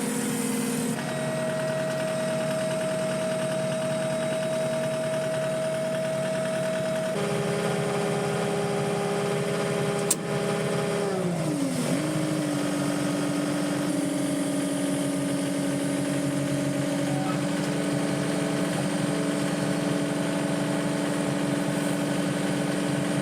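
Skid steer loader engine running steadily, its pitch stepping once and then dropping as the revs come down about halfway through, with a single sharp click just before.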